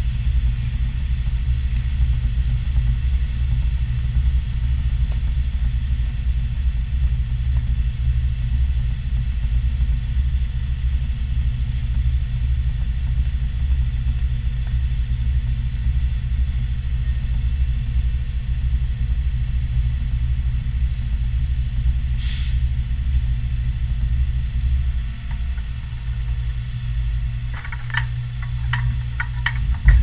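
Concrete pump truck running, a steady low rumble. A run of light ticks comes in near the end.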